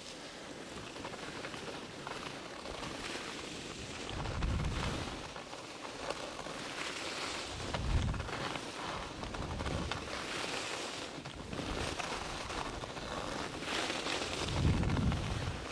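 Skis hissing and scraping over packed snow, with wind buffeting the microphone in a few low rumbling gusts.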